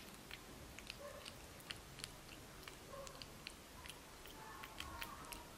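Quiet, irregular small clicks and smacks of a baby monkey's mouth as it eats fruit smoothie off a metal spoon.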